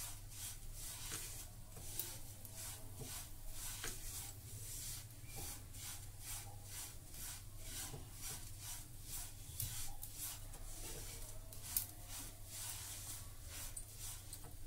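Wooden spatula stirring white sesame seeds as they roast in a nonstick frying pan. The seeds rustle and the spatula scrapes across the pan in repeated strokes, about two or three a second.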